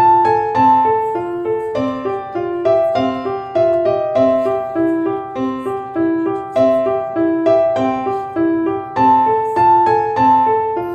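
Background piano music: a gentle melody of evenly paced notes that strike and fade.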